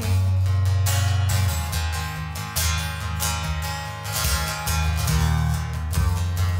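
Country song's instrumental passage: strummed acoustic guitar over a steady low bass line, with no singing.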